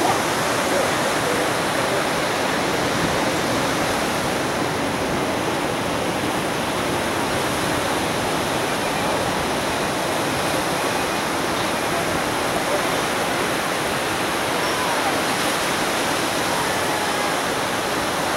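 Ocean surf breaking and washing up the beach in a steady, unbroken rush of noise.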